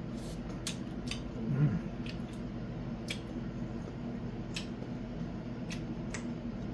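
Metal kitchen tongs clicking as their arms snap together, about eight sharp clicks at irregular intervals, over a steady low hum.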